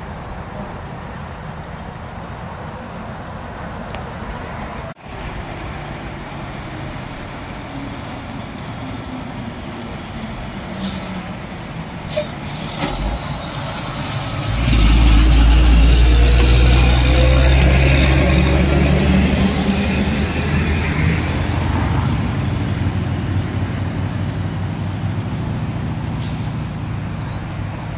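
Fire department water tanker truck's diesel engine passing close by: distant traffic at first, then the engine becomes loud suddenly about fifteen seconds in, with a high rising whine on top, and slowly fades as the truck drives away.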